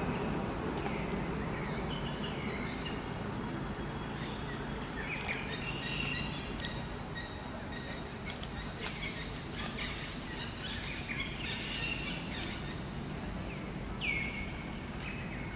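Outdoor ambience: a steady low rumble under many short, high chirping calls, several sweeping down in pitch, with one longer falling call near the end.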